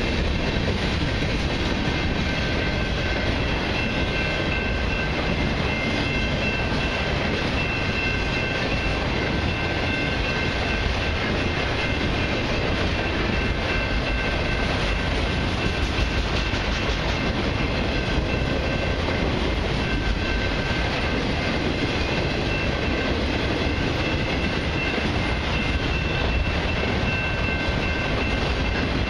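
Freight train of covered hoppers and autorack cars passing at speed: a steady rumble and rattle of car bodies and wheels on the rails.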